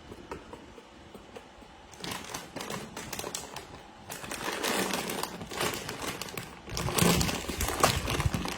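Plastic snack packaging crinkling as it is handled. There are a few light ticks at first, then a dense crinkling that starts about two seconds in and gets louder toward the end.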